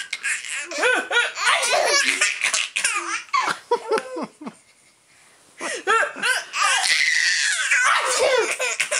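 Baby laughing in repeated bursts of giggles and belly laughs. The laughter breaks off for about a second halfway through, then starts up again.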